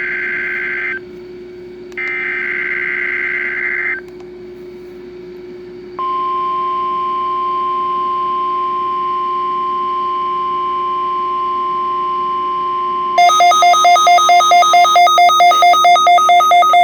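NOAA Weather Radio weekly test tones: two buzzing SAME data bursts of about two seconds each with pauses between, then the steady 1050 Hz warning alarm tone held about seven seconds. About thirteen seconds in, a louder rapid beeping at about four beeps a second takes over. A low steady hum runs underneath.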